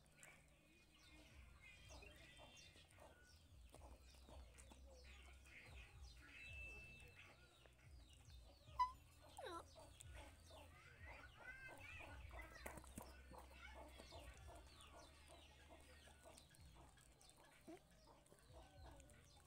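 Chickens clucking faintly in the background, with a single brief sharp sound about nine seconds in.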